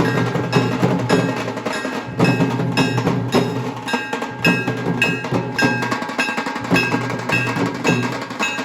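Instrumental band music playing a tune: a ringing melody over a steady, regular percussion beat.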